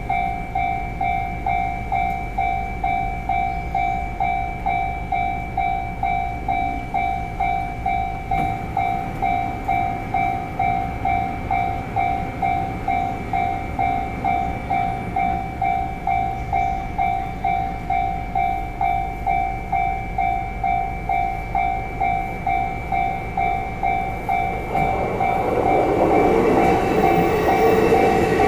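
Japanese level-crossing warning bell ringing at an even pace of about two dings a second, the crossing held closed. Near the end a train starts to run through the crossing, its rumble rising under the bell.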